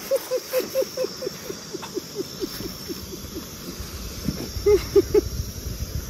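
A freshly landed catfish grunting on the bank: a quick series of short croaks, each falling in pitch, about five a second, then three louder ones near the end, over faint night insects.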